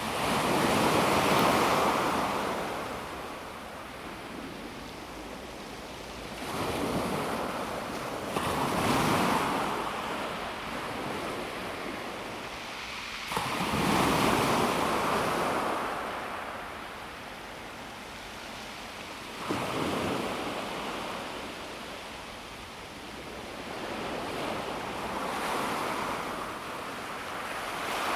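Calm sea waves washing in on a pebble beach. About six swells rise and fall back in turn, the loudest near the start and about halfway through.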